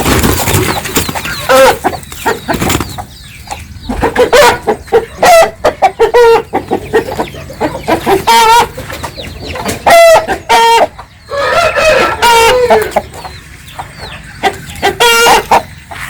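Native country chickens clucking and calling close by in short, repeated calls, with a rooster crowing among them.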